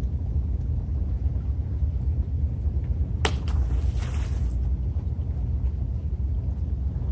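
Steady wind rumble on the microphone. About three seconds in, a fishing float rig hits the water with one sharp splash, followed by a brief spray hiss.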